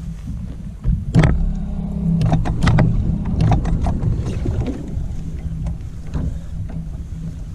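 A boat's outboard motor running with a steady low hum, with a run of sharp knocks and clatters about a second in that lasts a few seconds.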